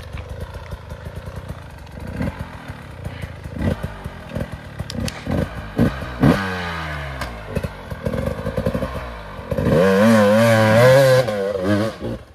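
Enduro dirt bike engines on a steep climb: short throttle blips with clattering knocks, a rev that falls away about six seconds in, then a loud revving held for about two seconds near the end, its pitch wavering.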